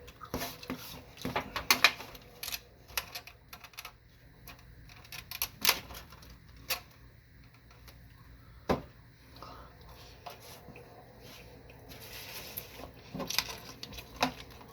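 Irregular light clicks, taps and knocks of dishes and food packaging being handled while eating, with a brief rustle about twelve seconds in.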